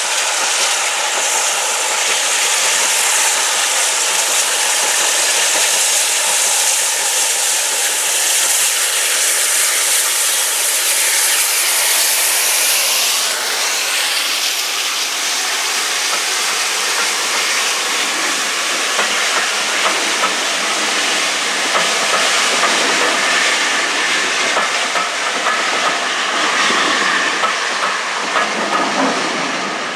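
Steam locomotive No. 9351, a GWR 2-6-0 mogul, passing close with a loud hiss of steam for the first dozen seconds or so. Then its train of wooden-bodied coaches rolls by with a steady clatter of wheels over the rails.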